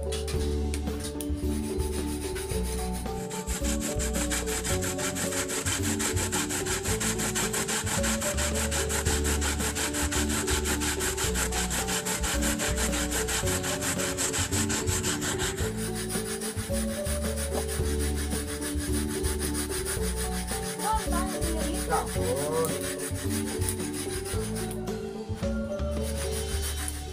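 Coconut flesh grated on a metal hand grater into an aluminium bowl: rapid, even rasping strokes that start a few seconds in and stop abruptly about halfway through.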